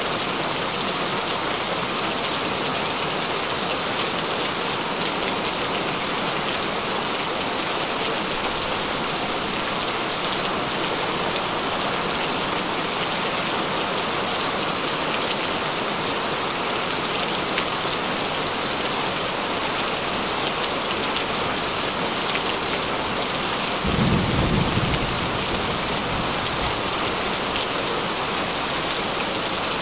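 Steady heavy rain falling, with one low roll of thunder lasting a second or two late on.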